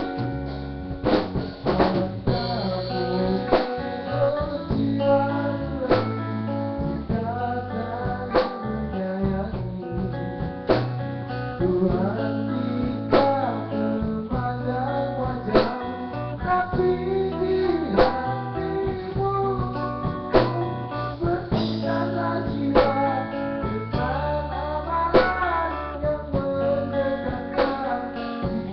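A band playing a song: guitar and bass over a drum kit keeping a steady beat.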